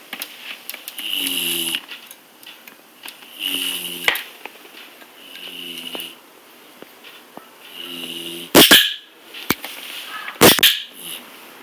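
A sleeping bulldog snoring in slow, even breaths about every two seconds. Near the end come two short, loud, sudden sounds.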